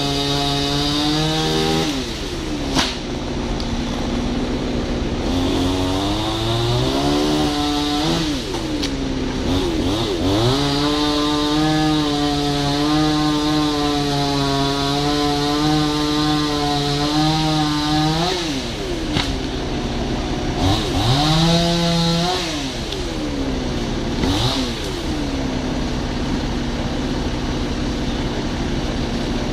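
Two-stroke chainsaw cutting tree limbs. It holds at high revs for long stretches and drops back and swoops up again several times, about two seconds in, around eight and ten seconds, and repeatedly near the end. A steady lower engine runs underneath.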